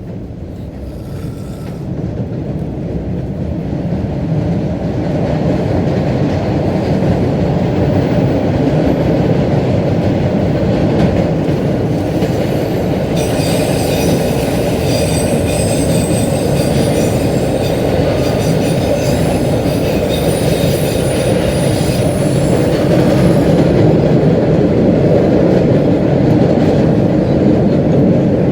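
Orange Line subway train running, heard from inside the car: a loud steady rumble and rattle that builds over the first few seconds, with metal wheels squealing against the rails through the middle stretch.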